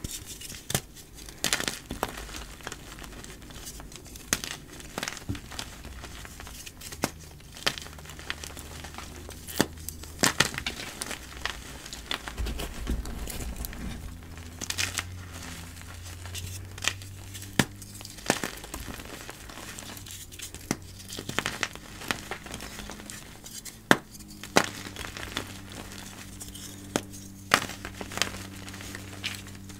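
Dyed gym chalk being crushed and crumbled, a run of irregular dry crunches and crackles with a few sharper snaps.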